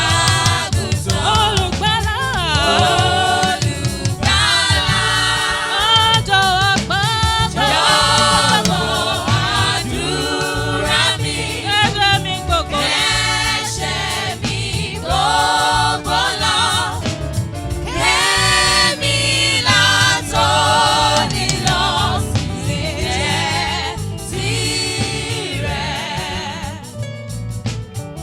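Gospel worship music: voices singing a slow prayer song with vibrato over a steady instrumental accompaniment.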